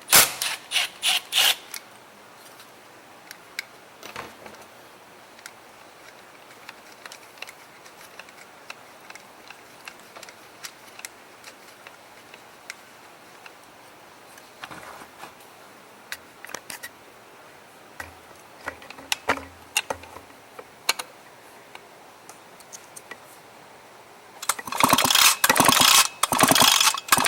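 Clicking and rattling at the start, then scattered small handling clicks. Near the end come several rapid, loud pulls of the Echo ES250 blower-vac's recoil starter, its ratchet clattering, as the engine is cranked to check for spark with the kill switch disconnected.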